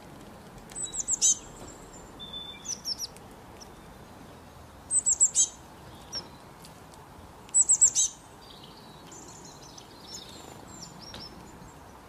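Small songbird calling: three loud bursts of four or five quick, high chirps, each note sliding down in pitch, with softer chirps between them and faint twittering near the end, over a steady low hiss.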